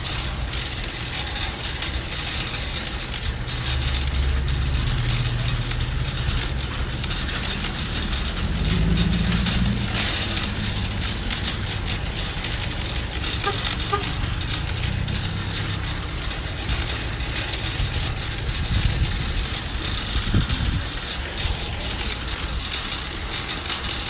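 Grocery cart being pushed along: its wheels rolling and wire basket rattling steadily, with a low rumble underneath.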